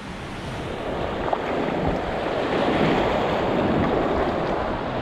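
Ocean surf breaking and washing up the beach, swelling louder through the first few seconds and then easing a little, with wind buffeting the microphone.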